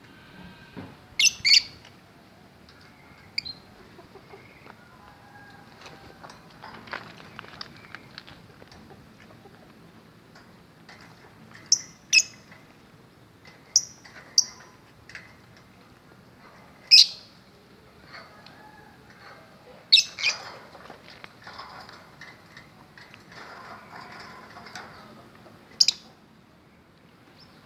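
Cage birds calling: short, shrill squawks every few seconds, often in quick pairs, with softer chirping and chatter between them.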